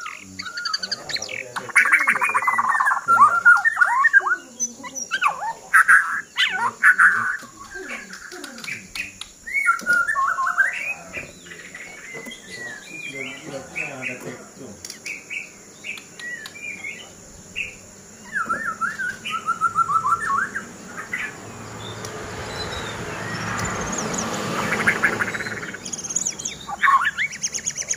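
White-rumped shama (murai batu) singing in repeated loud bursts of varied whistled phrases and rapid trills, with short pauses between them. Toward the end a rushing noise swells and fades under the song.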